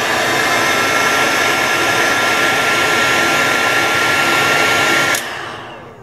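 Stanley heat gun blowing hot air steadily, with a faint steady whine from its motor. About five seconds in it stops and the airflow runs down.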